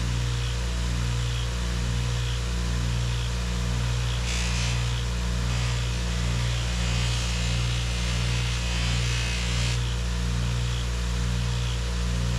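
Electric power tool running steadily with a low, slightly pulsing hum and a hiss, harsher and brighter for a stretch from about four to ten seconds in, as when work is held against it.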